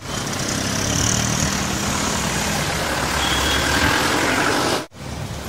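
Street traffic: engines of passing vehicles, including a three-wheeled auto-rickshaw close by, over steady road noise. The sound cuts off suddenly near the end.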